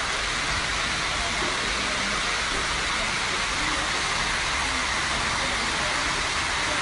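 Steady rushing of floodwater pouring down metro station escalators.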